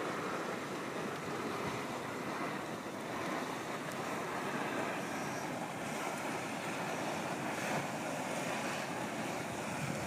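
Steady hissing and rushing of steam vents and boiling hot-spring jets in a geyser basin, mixed with wind buffeting the microphone.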